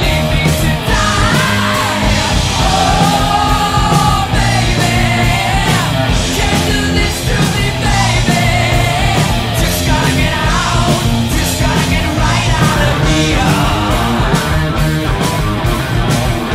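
Loud rock music with singing and a steady drum beat.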